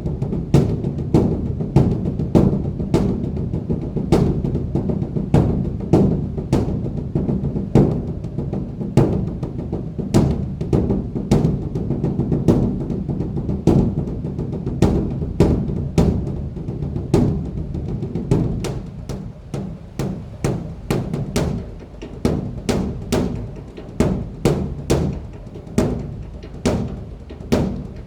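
Large temple barrel drum (beopgo) beaten with sticks in a fast, shifting rhythm of about two to three strokes a second, each stroke booming into the next. The strokes grow softer and come closer together in the second half.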